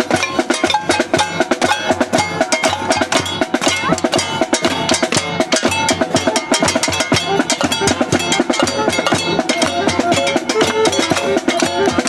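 A crowd of protesters banging drums and other percussion noisemakers at once, a loud, dense, irregular clatter of many strikes a second with some pitched tones mixed in.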